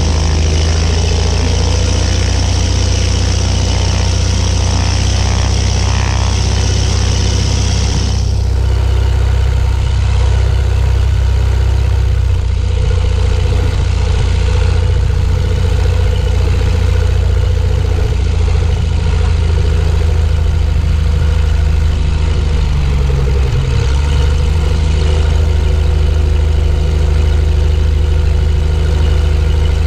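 Zenith STOL 750's piston engine and propeller running at low power as the plane taxis on grass. A high hiss over the engine stops about eight seconds in, and the engine note dips briefly near the end.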